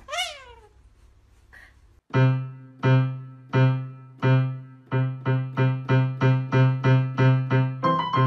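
A galah gives one short squawk, then about two seconds in, piano music starts: one low note struck over and over, speeding up, with a tune beginning near the end.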